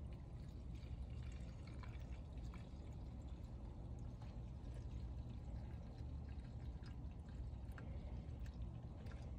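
Pre-mixed 50:1 two-stroke fuel pouring steadily and faintly from a metal can's spout into the fuel tank of a two-stroke pole saw.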